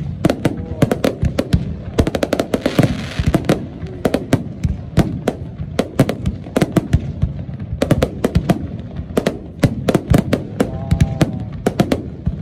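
Fireworks display: aerial shells bursting overhead in a rapid, irregular barrage of sharp bangs, several a second, with a brief crackling hiss about three seconds in.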